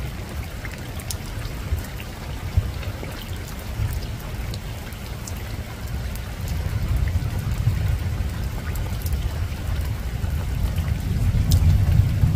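Steady rain falling on a rooftop, with scattered drops ticking, over a low rumble of distant thunder that swells near the end.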